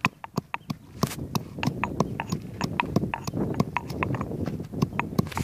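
Stone pestle pounding whole spice seeds in a stone mortar: a steady rhythm of sharp knocks, about three a second, each with a dull thud underneath.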